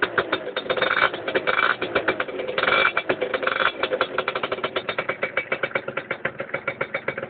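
Peugeot Speedfight 2 scooter's two-stroke engine running through an aftermarket Doppler performance exhaust. It is blipped up on the throttle several times in the first four seconds or so, then drops back to idle with a rapid, even putter.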